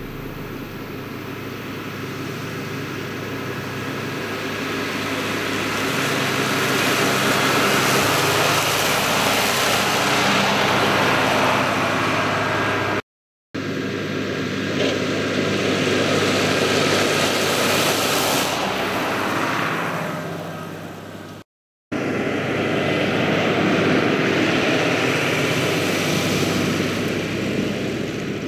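Fendt Favorit 511 C tractor's diesel engine working under load with a Pöttinger front mower cutting grass. It grows louder as it comes close and fades as it moves off. The sound cuts out for a moment twice and starts again at a new distance.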